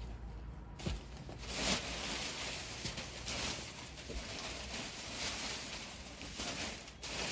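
Rustling of paper and cloth being handled, a continuous rough hiss with a few soft knocks.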